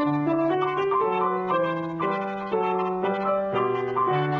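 Piano playing: a melody of single notes over held low chords, a new note about every half second.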